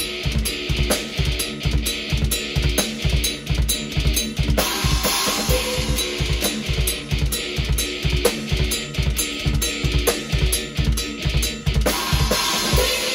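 Drum kit played hard in a heavy metal groove, heard raw through the camera microphone: a fast, even bass drum beat of about five kicks a second, with snare strikes and a constant cymbal wash.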